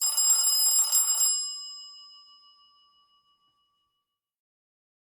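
A Cubot X6 smartphone's built-in alert tone: a bright, chiming electronic sound lasting about a second and a half, its ringing tones fading away by about three seconds in.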